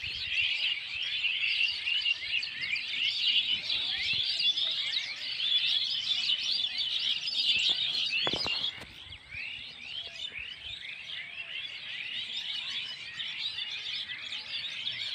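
Many small birds chirping at once in a dense, continuous chorus of short, overlapping high chirps. It becomes somewhat quieter about eight and a half seconds in.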